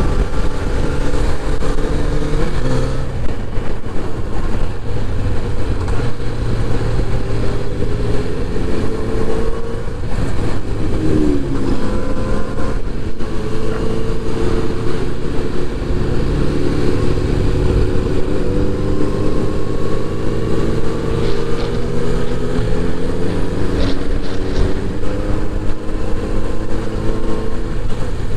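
Kawasaki inline-four motorcycle engine and exhaust while riding. Its pitch slowly rises and falls with the throttle, with a quick drop and climb about eleven seconds in.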